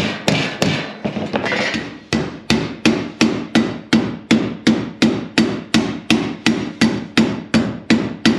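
Mallet blows on a strip of 316 stainless steel angle, stretching and bending it round a curved edge. For the first two seconds the blows are uneven, with some rubbing between them; after that they come steadily, about three a second.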